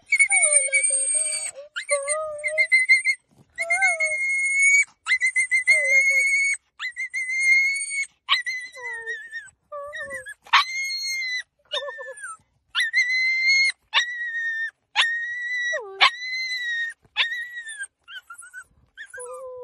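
A small, frightened dog whining and crying in a long series of high-pitched cries, each up to about a second long with short breaks between them, some sliding up and down in pitch, as a hand reaches toward it.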